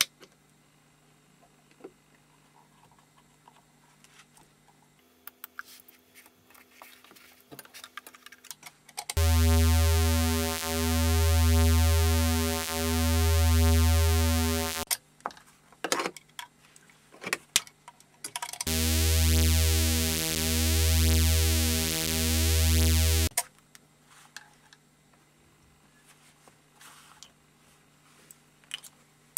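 Homemade Weird Sound Generator synth, a square-wave oscillator built on a 40106 Schmitt-trigger inverter chip, sounding a loud, buzzy low drone twice, for about six seconds and then about five, each swelling in slow pulses roughly one and a half seconds apart. Small clicks from switches and handling come before, between and after the two drones.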